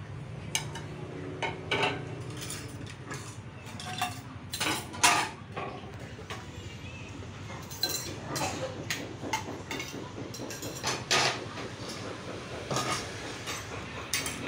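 Plates and cutlery clinking and clattering as dishes are handled on a table, in irregular sharp knocks, over a low steady hum.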